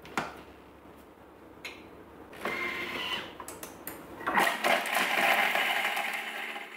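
Thermomix TM6 blades chopping three garlic cloves in the mixing bowl: a short loud whir of the motor and blades starting about four seconds in, lasting about three seconds.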